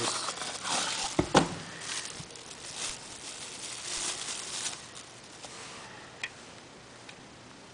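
Clear plastic packaging crinkling and rustling as a can opener is handled and slid out of its wrapping, with a sharp knock about a second and a half in. It quietens after about five seconds to a few faint ticks.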